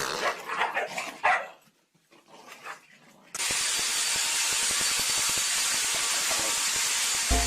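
A dog barking and yipping a few times in quick succession, the loudest bark about a second in. About three seconds in, a steady hiss starts and holds until the end.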